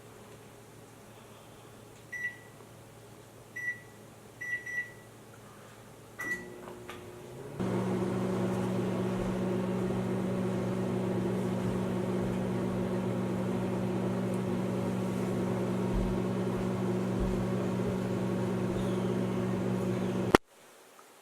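Microwave oven: five short keypad beeps, then the oven starts and runs with a steady hum and drone. Near the end the hum cuts off suddenly with a click.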